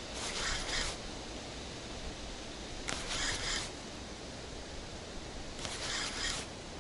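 Spinning reel cranked in three short bursts of just under a second, about every three seconds, with pauses between: the stepped retrieve of a jig. Steady wind noise runs underneath.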